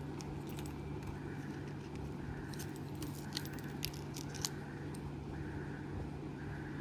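Faint clicks and light rattles of a stainless-steel mesh-strap wristwatch and its plastic wrapping being handled, clustered around the middle, over a steady low hum and a soft sound repeating about once a second.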